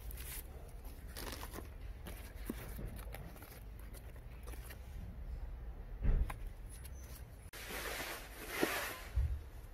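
Soft rustling and light clicks of foam fruit-protector netting being handled, then, about three-quarters in, a plastic tarp crinkling as it is spread out on the ground, with low thumps about 6 s in and near the end.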